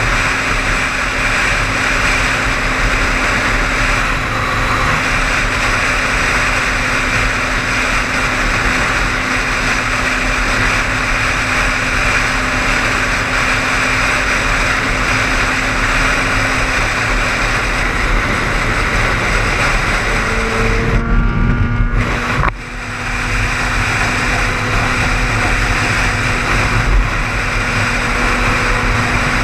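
Car driving at highway speed, heard from inside the cabin: steady tyre, wind and engine noise. There is a brief change and a short dip in the noise about three-quarters of the way through.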